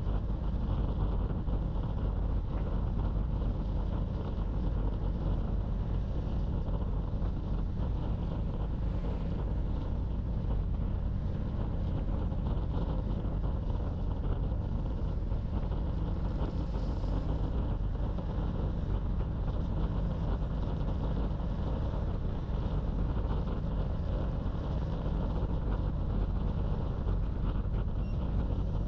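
Steady wind rush on the microphone of a camera riding along on a road bicycle, a deep, even roar without breaks, mixed with the road noise of the moving bike.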